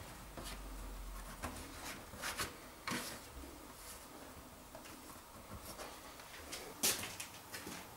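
Scattered plastic clicks and light knocks as a hand presses and fits the front cover of an ABB inverter drive, with the sharpest click near the end.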